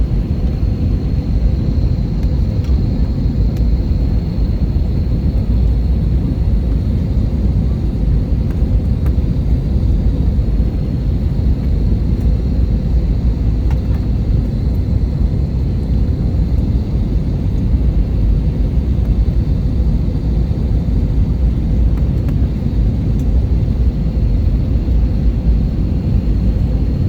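Airliner cabin noise: a steady, loud low rumble of engines and airflow, with a faint steady high whine over it.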